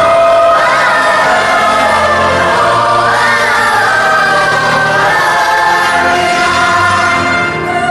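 Choir singing long held notes over instrumental accompaniment.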